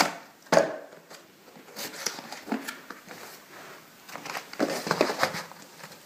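A graphics card's cardboard retail box being handled and opened: a sharp knock about half a second in, then light rustling and taps.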